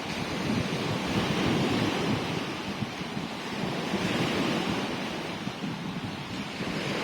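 Sea surf: waves breaking and washing ashore in a steady rush that swells and eases, with wind buffeting the microphone.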